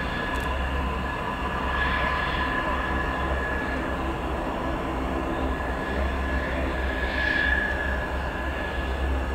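Jet engine of a Mitsubishi F-2 fighter taxiing at low power: a steady high whine over a low rumble, swelling a little about two seconds in and again near seven seconds.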